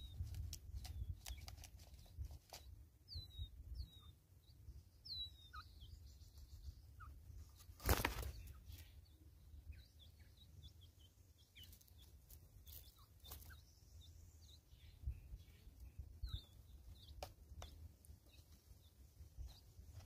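Small birds giving short, high, downward-sliding chirps, with scattered faint taps of birds pecking at a plastic seed feeder. About eight seconds in comes a loud, brief whirr of wings as a Natal spurfowl takes off.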